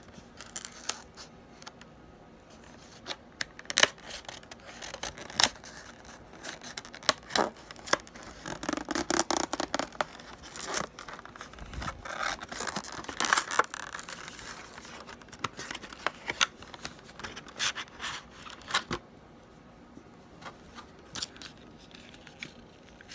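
A clear plastic blister pack of a Mattel Disney Pixar Cars toy being worked open by hand: crinkling, cracking and tearing plastic and card, with many sharp clicks and scrapes. It is busiest in the middle and thins out near the end as the toy car comes free.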